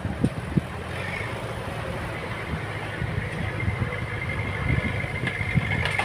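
Heavy construction machine's engine running steadily, with a few short knocks.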